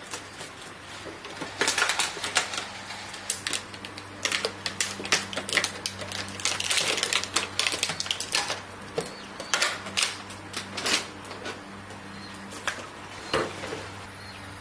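Many sharp, irregular clicks and clatters, denser in the middle, with a steady low hum underneath.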